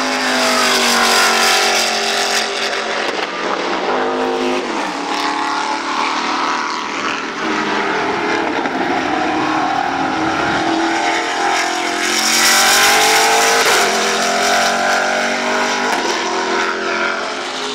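Saleen S7-R GT1 race car's 7-litre Ford V8 running hard on track, its pitch rising and falling again and again as it revs up and changes gear. It is loudest about twelve seconds in, as the car passes closest.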